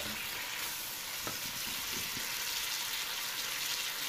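Chopped onions and tomatoes sautéing in hot oil in a wok: a steady sizzle as they are stirred with a wooden spatula.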